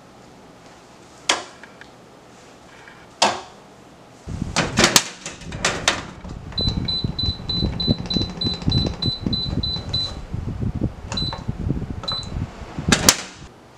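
Control panel of a wall-mounted air conditioning unit beeping as its buttons are pressed: a quick run of short, even high beeps at about three a second as the temperature is set, then two single beeps. A low rumbling noise runs under the beeps, and a few sharp clicks come before them and one near the end.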